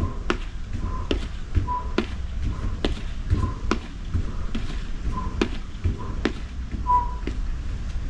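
Sneakers landing on a hard floor as a person marches with high knees, giving sharp, uneven slaps about every half second to second. Short whistle-like chirps sound now and then between the steps.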